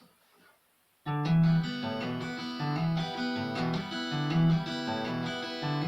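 Guitar introduction to a song: after a second of near silence the guitar starts playing chords, with bass notes picked about once a second in a steady rhythm.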